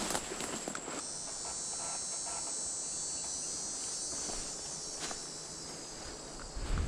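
Steady, high-pitched chorus of insects trilling in the woods, with a few footsteps scuffing through dry leaves and pine straw.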